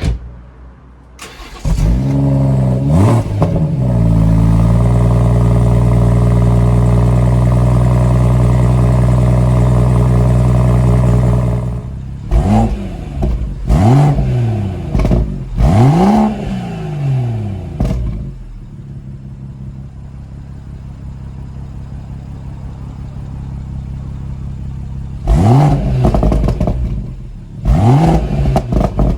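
BMW M140i's 3.0-litre B58 straight-six on its stock exhaust, being revved. About two seconds in the engine comes up and holds a steady raised speed for several seconds. Then come three sharp throttle blips, a quieter idle, and three more blips near the end.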